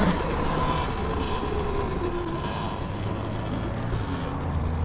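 Talaria XXX electric dirt bike on the move: steady rumbling ride and wind noise with a faint motor whine that rises and falls in the first couple of seconds.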